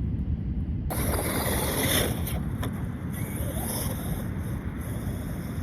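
Wind buffeting the microphone in a steady low rumble, over the rushing hiss of ocean surf.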